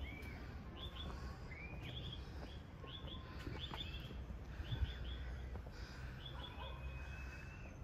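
Small birds chirping: quick high chirps in little clusters of two or three, repeating every second or so, with a couple of longer level whistles near the end, over a low steady rumble.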